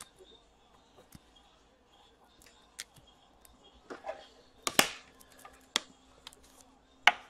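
Hockey trading cards being handled and flipped through: scattered light clicks and rustles, with a few louder snaps about five and seven seconds in.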